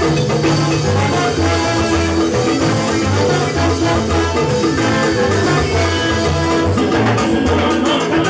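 Live salsa band playing, with a repeating bass line under percussion and horns.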